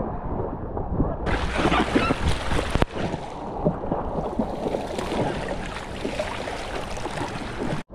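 River water rushing and splashing, as a steady loud wash that changes abruptly at about one and three seconds in where short clips are joined.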